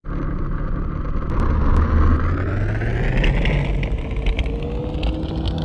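A motor vehicle driving, with engine rumble and road noise that rise steadily in pitch.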